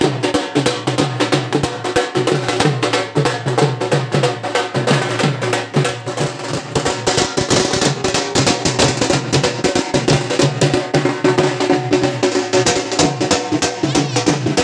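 Dhol drums played in a fast, steady rhythm over music.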